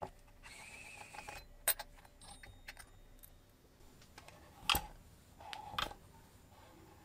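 Light metallic clicks and clinks from a miniature brass model engine being handled, with three sharper ticks; the loudest comes about halfway through.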